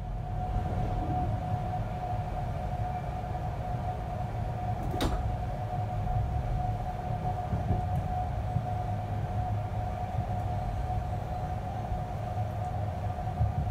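Rumble of a moving passenger train heard inside the coach, steady throughout, with a steady high tone running over it and one sharp click about five seconds in.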